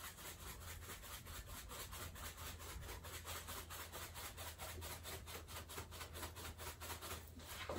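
Dried parsley flakes being sprinkled by hand: a faint, rhythmic rubbing in quick, even strokes.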